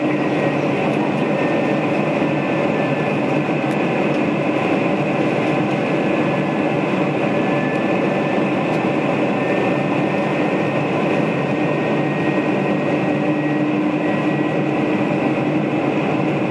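Steady cabin noise inside a Boeing 747-400 in flight: the rush of airflow and the drone of its four turbofan engines, even and unbroken, with a few faint steady tones in it.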